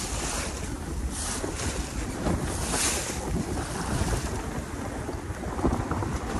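Wind buffeting the microphone over water rushing and splashing along the hull of a Com-Pac Sun Cat 17 catboat under sail in a Force 4–5 breeze. The hiss of spray surges every second or two as the bow meets the chop.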